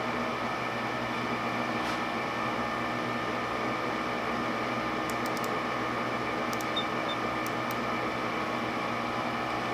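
Steady machine hum holding several constant tones, with a few faint light clicks about halfway through as an outside micrometer is worked on the turned steel bar.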